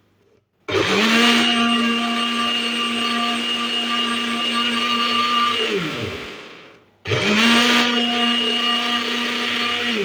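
Countertop blender motor blending fruit with water in two runs. Each run spins up quickly to a steady whine, and the first winds down to a stop after about five seconds. The second starts about a second later and is still running at the end.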